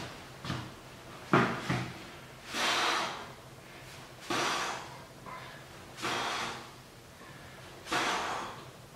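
A man's forceful breaths under effort as he curls a heavy barbell: four hard rushes of breath, one every couple of seconds, one per repetition. Two sharp knocks come about a second and a half in.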